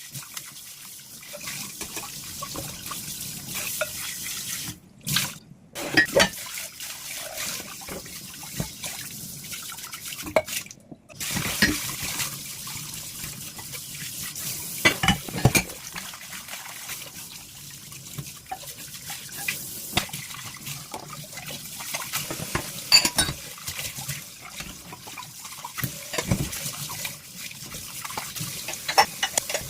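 Tap water running into a kitchen sink during hand dishwashing, with scattered clinks and knocks of dishes being handled. The water stops for an instant twice, about 5 and 11 seconds in.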